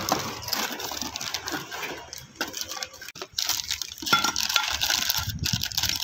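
Clear plastic bag crinkling and cardboard box rustling as a new scooter clutch pulley part in its bag is handled, a dense run of small crackles and ticks.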